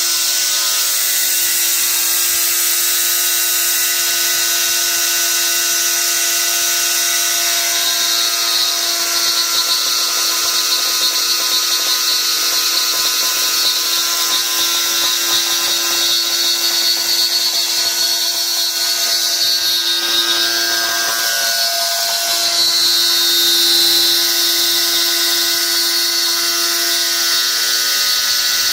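Milling machine spindle running with an end mill cutting a roughing pass: a steady whine made of several tones over hiss, with a brief break in the lowest tone about three-quarters of the way through.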